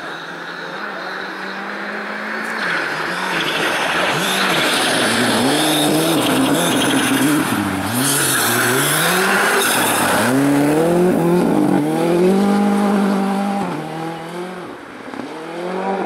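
Rally car engine revving hard as the car approaches, brakes through a corner and accelerates away. The engine pitch falls and climbs again and again with the gear changes, and it is loudest in the middle as the car goes by.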